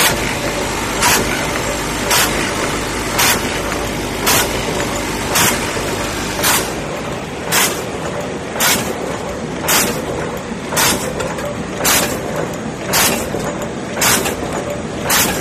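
Automatic cold heading machine for making screws and bolts running at speed: a steady mechanical clatter and hum, with a short loud burst repeating evenly about once a second.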